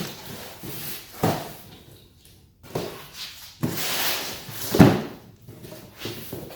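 Cardboard shipping box being opened and handled to get a motorcycle tire out: several sharp knocks and scrapes, the loudest about five seconds in.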